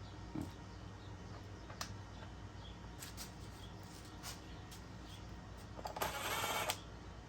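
Scattered light clicks and taps of tools and small metal parts being handled during mower reassembly, with a short rasping burst about six seconds in.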